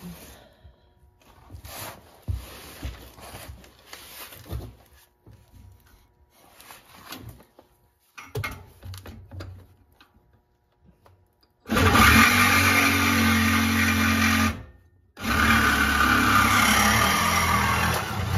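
Reciprocating saw (Sawzall) cutting through the car's exhaust pipe: two loud, steady runs of about three seconds each with a short stop between. Before the saw starts there are only faint handling knocks and scrapes.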